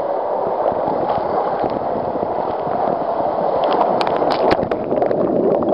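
Water rushing and churning down a water slide as the rider slides through it. About three and a half seconds in come sharp splashes as the slide runs out into the pool.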